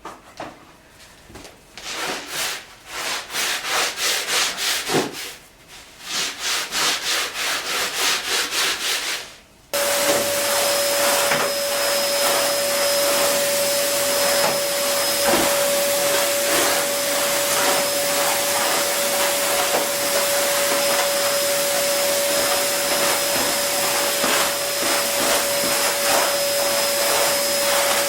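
A brush scrubbing a carpet in rapid back-and-forth strokes, a few strokes a second, with short pauses. About ten seconds in, a vacuum cleaner switches on and runs steadily with a constant whine.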